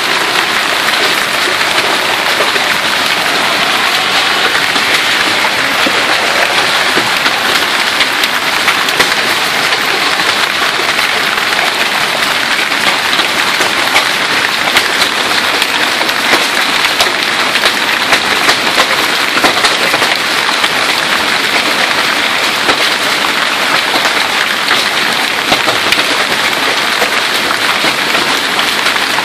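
Heavy hailstorm: a loud, steady hiss of hail and rain, peppered with many sharp clicks of hailstones striking hard surfaces.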